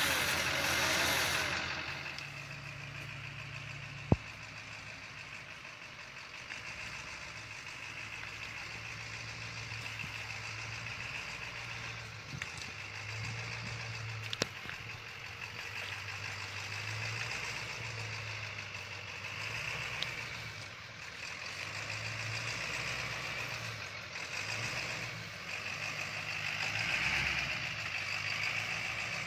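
Ford pickup truck's engine running at crawling speed under the load of a fifth-wheel travel trailer on a rocky trail, its rumble rising and falling as it works over the rocks. A few sharp knocks break through, the loudest about four seconds in and another about fourteen seconds in.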